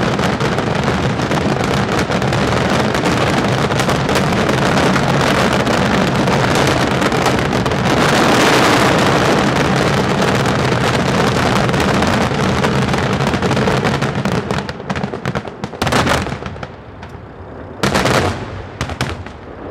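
Daytime aerial fireworks shells bursting in a dense, continuous barrage of bangs and crackling, heaviest about eight seconds in. After about fifteen seconds it thins out into a few separate loud bangs.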